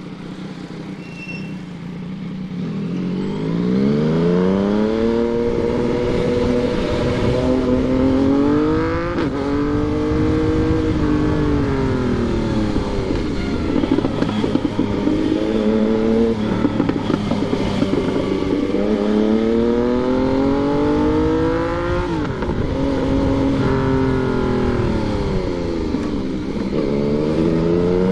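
Yamaha MT-09's inline three-cylinder engine on the move: a low, even note for about three seconds, then accelerating hard, the pitch climbing and falling back sharply at each of several gear changes.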